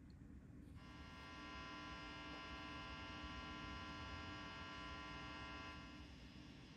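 Matchless Lightning Reverb tube guitar amp with the master all the way up, giving off a faint, steady 120-cycle hum with a buzzy edge that comes up about a second in and eases near the end. The hum is not excessive, and the technician puts it down to ripple from the amp's old filter capacitors.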